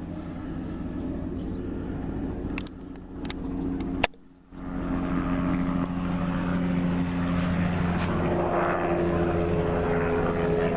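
Crop-spraying helicopter's engine and rotor running steadily in a drone with several steady tones, a few sharp clicks and a brief cutout about four seconds in, after which it is louder.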